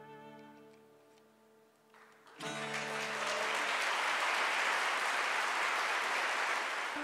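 The last notes of a plucked, round-backed long-necked string instrument ring out and fade away. About two and a half seconds in, an audience breaks into applause, which holds steady for the rest.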